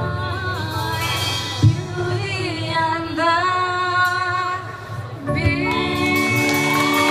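Live band playing a slow ballad: a girl sings the lead over electric guitar and keyboard, with long held sung notes. About five seconds in there is a brief drop, then a sustained closing chord.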